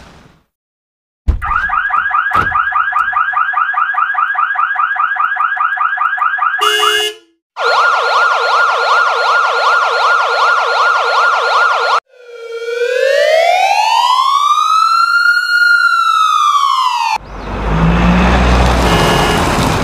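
Siren sound effects in turn: a fast warbling yelp for about six seconds, a short horn blast, a second rapid yelp, then one slow wail that rises and falls. Near the end comes an engine-like noise with a brief horn beep.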